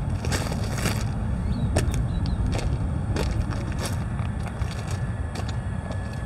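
Footsteps crunching on railroad ballast gravel, about one step every half second to a second, over a steady low rumble.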